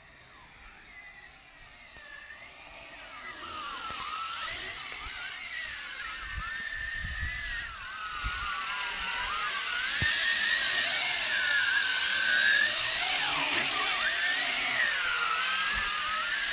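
WLToys Galaxy V353 RC quadcopter's electric motors and propellers whining, the pitch wandering up and down with the throttle. It grows louder as the quadcopter comes in close.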